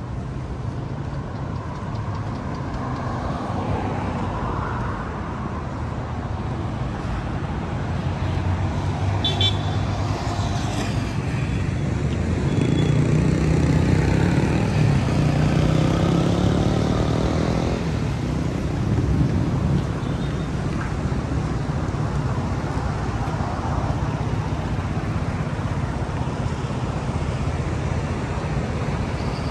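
Steady city road traffic: a rumble of cars and other vehicles going by. About halfway through, a vehicle's engine rises in pitch and passes loudest before fading.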